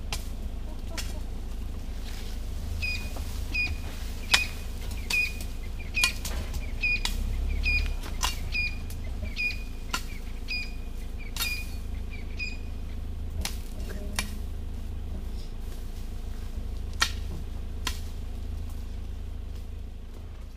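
An open safari vehicle grinding slowly through dense bush: a steady low engine rumble under repeated sharp cracks and scrapes of branches snapping against the vehicle. A short high chirp repeats about twice a second for several seconds in the middle.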